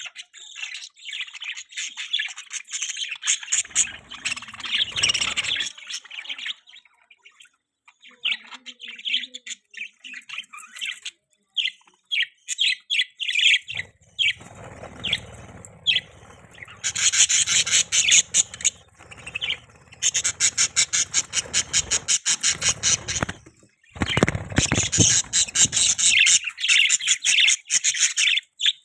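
Budgerigars chirping and chattering in quick runs of high chirps, sparse for a few seconds about a third of the way in and densest in the second half.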